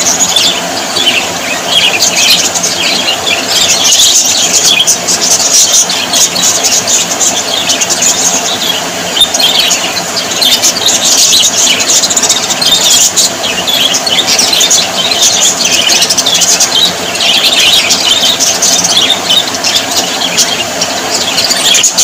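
A flock of budgerigars chattering without pause, many short high chirps overlapping in a dense stream.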